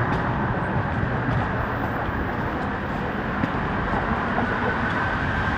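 Steady city street traffic noise, a continuous rumble of passing vehicles, with a faint high whine coming in near the end.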